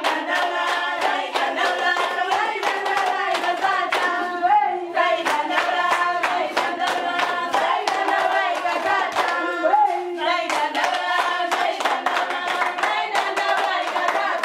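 A group of voices singing together, accompanied by steady rhythmic hand clapping.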